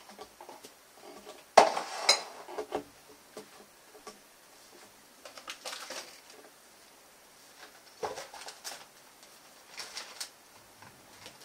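Kitchen clatter of dishes and utensils being handled and set down on a countertop: a sharp clink about one and a half seconds in is the loudest, followed by scattered knocks and clinks.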